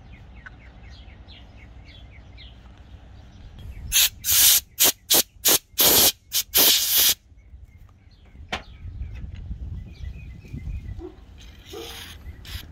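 DeoxIT D5 contact-cleaner aerosol sprayed in a rapid series of short hissing bursts, about four seconds in, then one more brief spray near the end. It is being worked into the Thermo King APU controller's knob contacts to clear oxidation that breaks the connection and sets off the shutdown fault. Birds chirp faintly in the background.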